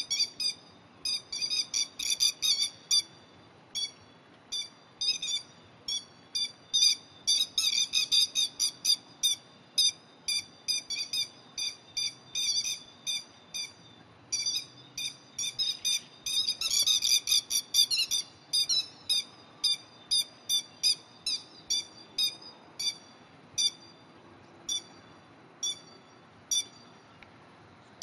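Grey-headed lapwings giving loud, shrill alarm calls, sharp notes repeated several times a second, with two bouts of rapid, overlapping calling, about a third of the way in and again past the middle. The pair is calling to drive off a cat that has come near their territory.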